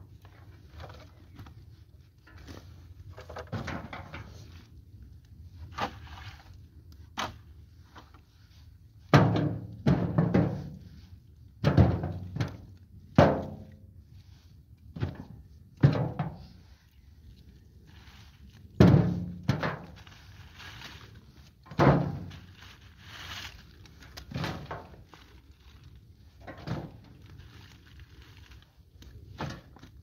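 Sticks and wood debris picked up from leaf litter and tossed into a container: a series of irregular thunks, the loudest through the middle stretch, with faint rustling of leaves and twigs between them.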